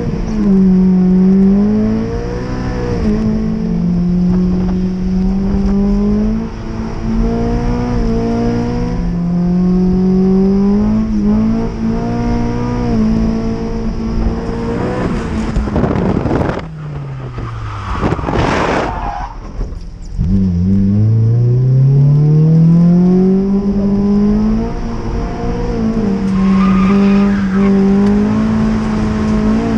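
Honda S2000's four-cylinder engine heard from inside the cabin at speed, its pitch rising and falling with the throttle and gear changes. About halfway through, the engine note falls away under a loud rushing burst, then climbs steeply back as the car accelerates again.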